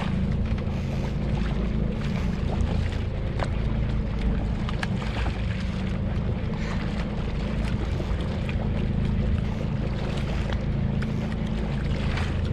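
A boat's engine idling steadily at sea, a low, even rumble with faint water and wind noise over it.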